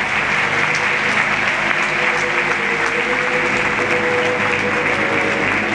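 Audience applauding, with music playing underneath.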